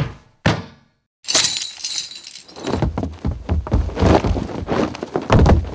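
Foley crash of breaking glass about a second in, followed by a few seconds of clattering debris and heavy thuds.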